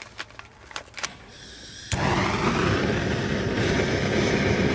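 A few light metal clicks, then about two seconds in a handheld gas torch's flame starts suddenly and runs as a loud, steady hiss, playing into a small folding stainless fire pit to light it.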